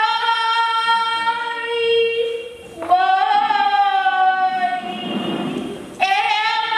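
A young girl singing solo, holding long notes in three phrases with brief breaths between them.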